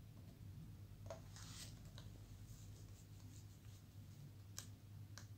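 Near silence with a few faint clicks and rubbing as fingers seat the display cable connector onto a replacement laptop LCD panel, over a low steady hum.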